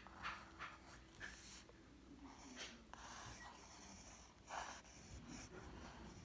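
Faint, irregular scratching of a mechanical pencil's graphite on notebook paper as cursive letters are written stroke by stroke.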